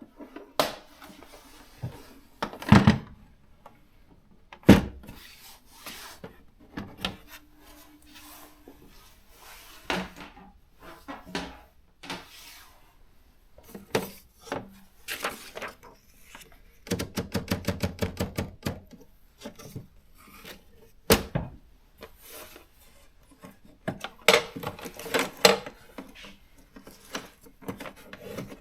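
Panasonic R540 electronic typewriter typing: irregular sharp strikes of the print mechanism, with a fast even run of strikes about two thirds of the way through. A short steady hum from the machine comes about seven seconds in.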